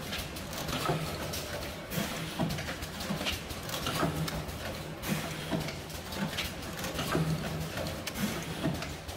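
A DPP-350B automatic button battery packaging machine running, with its rotary indexing table and air-driven stations clacking about once a second over a low motor hum that comes and goes.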